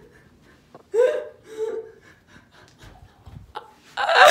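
A boy's short gasping, giggling vocal sounds, breaking into loud laughter near the end.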